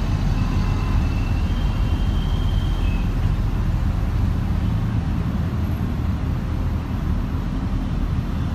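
Steady low rumble of city buses and road traffic alongside the busway platform, with a faint thin high whine during the first three seconds.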